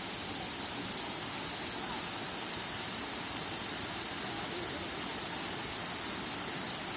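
Waterfall water rushing: a steady, even hiss with no breaks.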